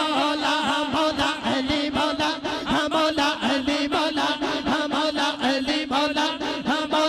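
Male voices chanting a devotional naat into microphones over a steady low drone, with a fast even beat of about three to four strokes a second.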